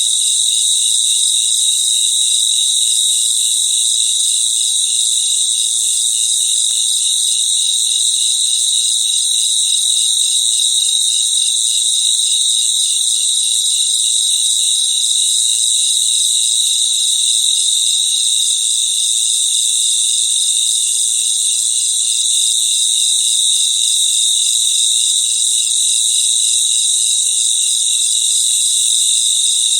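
A chorus of crickets chirping continuously, many insects overlapping in a dense, high, fast-pulsing trill that holds steady throughout.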